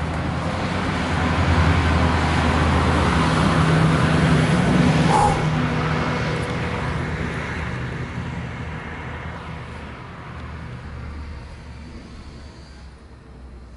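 A motor passing by, with a steady low engine hum under a broad rushing noise that swells to a peak about five seconds in and then slowly fades away.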